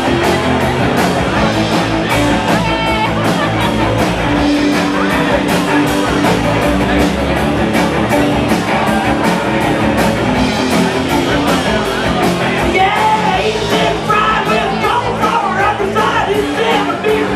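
Live rock band playing loudly: amplified cello, electric guitar and drums, with a steady fast drum and cymbal beat. A voice sings over it, most clearly in the last few seconds.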